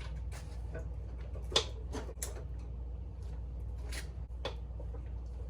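Irregular clicks and knocks of the Strawman animatronic's plastic frame parts being handled and snapped together, over a steady low hum.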